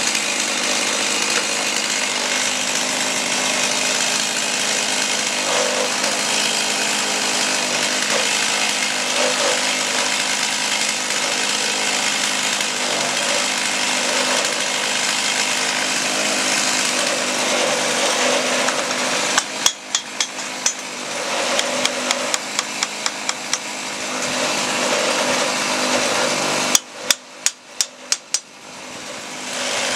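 Chainsaw on a homemade chainsaw mill, running steadily under load as it cuts lengthwise through an oak log. After about 19 seconds the engine sound drops and builds back up twice, with a quick run of sharp clicks in each dip.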